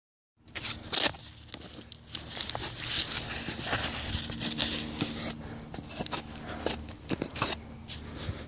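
Rustling and crackling handling noise on a hand-held camera's microphone as it is carried, with scattered clicks and a faint steady hum. The sharpest click comes about a second in.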